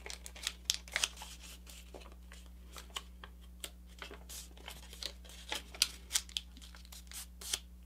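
Sheet of folding paper crinkling and crackling as the layers of a paper airplane are creased and tucked with the fingers: scattered, irregular soft crackles and clicks.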